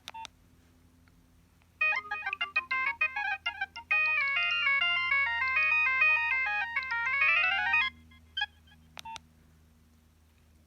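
Preloaded ringtone playing on a Nokia 3120 mobile phone: a quick electronic melody of several parts that starts about two seconds in, plays for about six seconds and ends on a fast rising run of notes. A click at the very start and a few faint clicks near the end.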